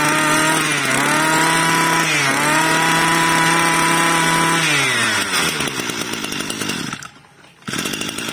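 A 26 cc two-stroke brush cutter engine being revved: it climbs to high revs, dips briefly twice, and holds high for a couple of seconds. About five seconds in it falls back to idle, with a brief break near the end before the idling sound resumes.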